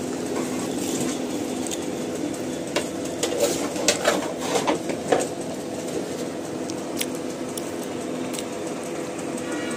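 A steady hum with a cluster of light clicks and clinks in the middle and a few single ticks later, from small things being handled on a workbench.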